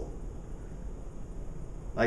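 Room tone: a steady low rumble with faint hiss, with no distinct sound.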